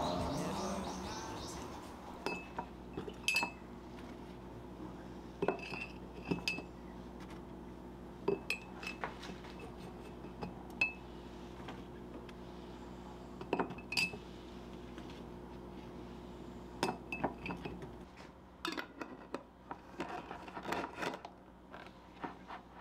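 Scones set one after another into a glass jar, each a light clink with a short glassy ring. Near the end a plastic lid is screwed onto the jar, a run of small quick clicks.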